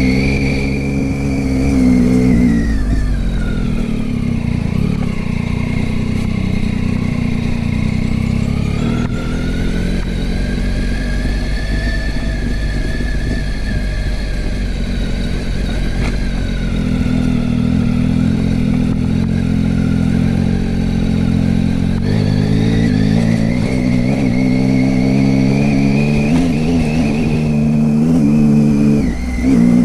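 Motorcycle engine running while riding, its note falling a few seconds in, then rising and falling slowly as speed changes, with a brief dip shortly before the end.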